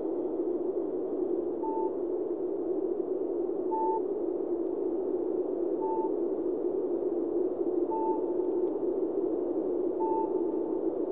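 Electronic soundtrack: a steady hissing drone with a short high beep about every two seconds, like a sonar ping.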